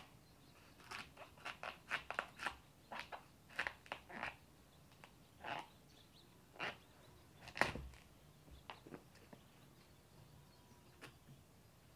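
Kitchen knife cutting through and scraping the flesh of a raw pumpkin: a rapid series of short, crisp crunches, thinning out near the end.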